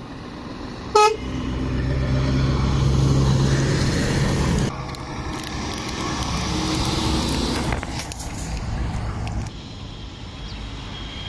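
A short, sharp vehicle horn toot about a second in, then a lorry's diesel engine passing close. The engine swells to its loudest a few seconds in, drops suddenly, and fades away.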